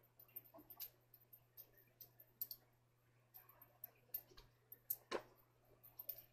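Faint, irregular clicks and a soft thump about five seconds in from a person kicking and jumping on a bed, over a steady low hum.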